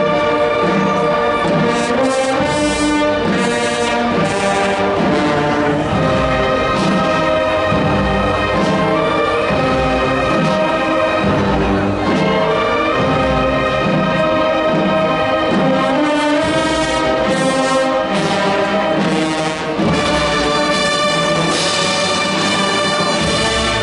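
Brass band playing a funeral march, with sustained brass chords over a steady low beat.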